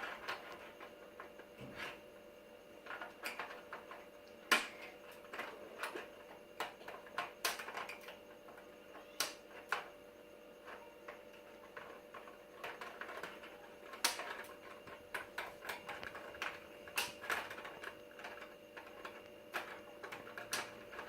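Irregular clicks and small snaps of plastic toy parts being handled and moved, a Transformers Titans Return figure being worked between modes, over a faint steady hum.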